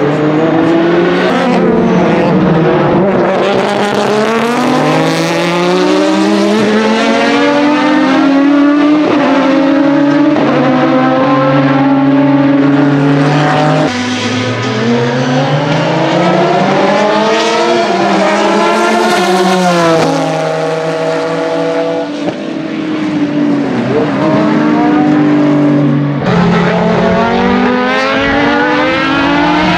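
Loud GT race car engines at speed, among them the Aston Martin V12 Vantage GT3's open-exhaust V12. The engine note climbs through the revs, drops at each gear change and falls away on lifting, over several separate passes.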